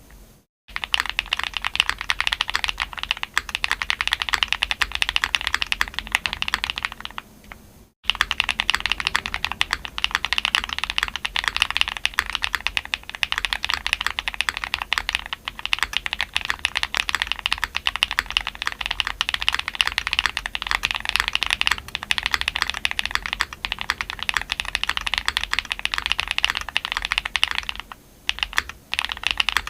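Fast typing on a Mr. Suit custom mechanical keyboard with lubed, filmed Tungsten switches, an aluminum plate, full foam and GMK Nautilus keycaps: a rapid, steady clatter of keystrokes. There is a short break about seven seconds in and another brief pause near the end.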